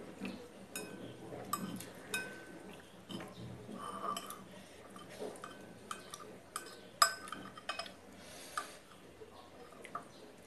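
Chopsticks and a spoon clinking and scraping against a ceramic bowl: a string of light, irregular taps, several with a short ring, the sharpest about seven seconds in.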